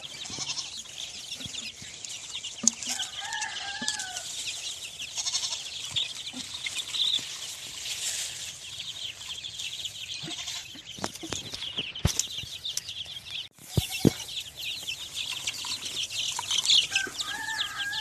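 A flock of young chicks peeping all together, a dense chorus of short high chirps, with a few knocks and a brief break about two-thirds of the way through.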